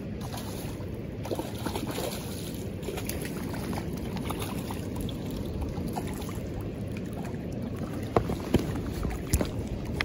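Steady rushing of a river's current close to the microphone, with a few short, sharp sounds near the end.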